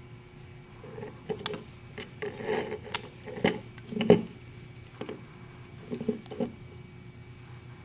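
Hands working the plastic and metal parts of a dome security camera: a run of clicks, taps and scrapes starting about a second in, with the loudest knock about four seconds in, then a few lighter clicks.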